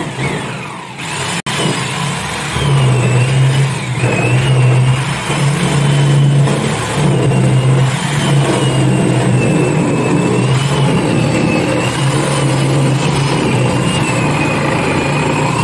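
Corded electric drill running continuously, spinning a mortise cutter in a lock-fitting jig into the edge of a wooden door. A steady motor whine runs throughout while a lower hum swells and dips as the cutter bites into the wood.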